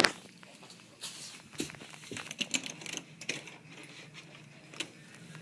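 Things being handled and moved about: a string of light knocks, clicks and rustles, with a sharp knock at the start and another near the end.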